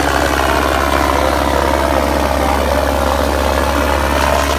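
Sonalika 60 tractor's diesel engine running steadily under heavy load as it drags a disc harrow through the soil, pouring black exhaust smoke.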